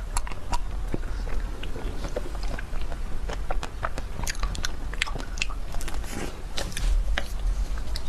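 Close-miked biting and chewing of a chocolate-coated ice cream bar, the chocolate shell cracking in many quick, irregular snaps and crackles.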